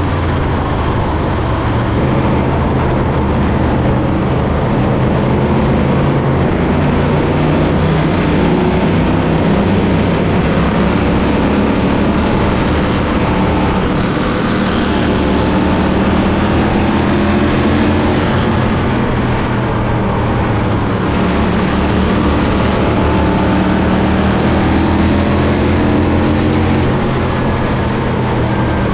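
Race car engine running hard at a near-steady speed, its pitch wavering a little up and down.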